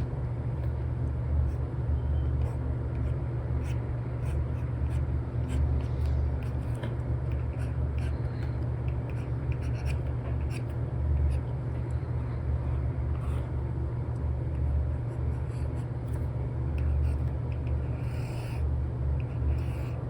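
Apple Pencil 2 with an Elecom nib scratching and tapping on a paper-like screen protector in quick, uneven strokes, over a steady low hum.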